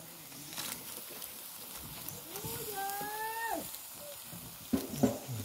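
A single long drawn-out call, held at one pitch for about a second, rising at the start and dropping away at the end. A few short sharp sounds follow near the end.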